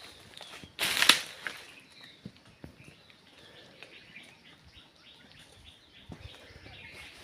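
Ambience of a water buffalo pen: faint bird chirps and scattered small clicks, with one short, loud rushing burst about a second in.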